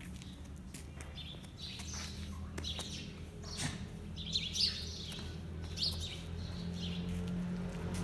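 High-pitched chirping calls coming and going over a steady low hum.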